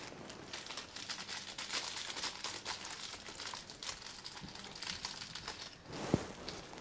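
Crinkling and rustling of paper or a wrapper, a dense run of small crackles over the first few seconds, then a single soft knock near the end.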